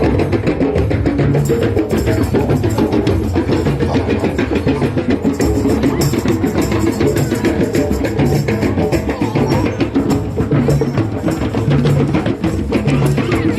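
Drum circle: many hand drums and other percussion played together in a steady, busy rhythm, with deep bass hits repeating under quick lighter strikes.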